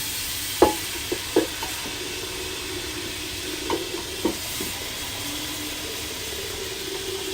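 Tap water running steadily into a pot, with a few knocks of the pot about half a second to a second and a half in and twice more near four seconds; a faint tone rises slightly as the pot fills.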